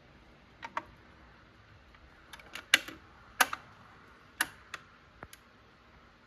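Irregular sharp mechanical clicks and knocks from a Panasonic SL-790 automatic turntable being operated. There is a pair of light clicks under a second in, then a cluster of louder clicks and knocks between about two and a half and five and a half seconds in.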